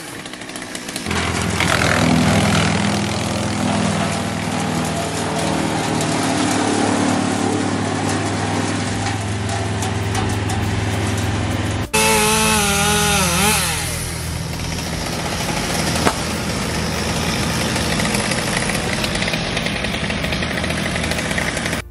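Chainsaw running steadily while limbs are cut from a tree. Its pitch rises and falls briefly about halfway through.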